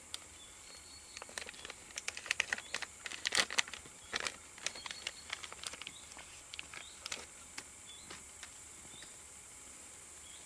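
Small plastic parts bag crinkling and crackling in gloved hands, a quick run of sharp crackles that is busiest in the first half and thins out after about seven seconds.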